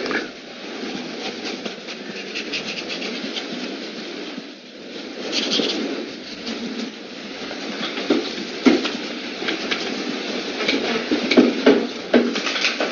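Close-miked drawing on paper: a steady scratchy rustle of strokes with many small taps, which come thicker and louder in the second half.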